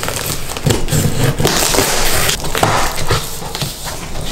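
Cardboard box being opened by hand: the top flaps tearing, scraping and flexing, with irregular knocks.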